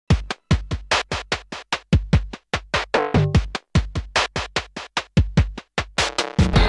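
Background music: a fast, steady electronic drum beat of sharp hits over deep kick-drum thumps, with a short pitched phrase about three seconds in, thickening into a dense full-band sound near the end.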